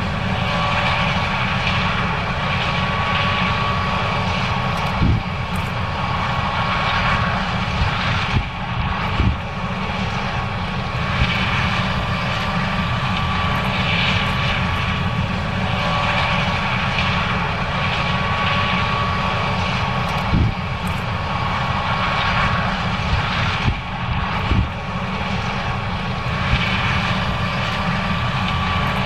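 John Deere S790 combine running steadily while harvesting corn, a constant engine and machinery drone with a faint steady whine, broken by a few brief thumps.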